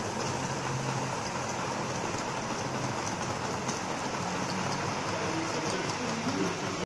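Gauge 1 model freight train of tank wagons rolling past on the track: a steady rolling noise of wheels on rails with a low hum.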